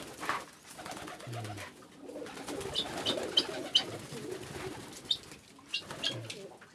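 Domestic pigeons cooing in their loft, with runs of short high chirps about three seconds in and again near the end.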